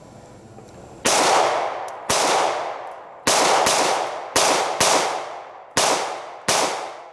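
Eight pistol shots from a Smith & Wesson M&P Shield Plus compact pistol, fired at an uneven, deliberate pace beginning about a second in, each sharp crack ringing out and fading before the next. The eighth shot empties the eight-round magazine.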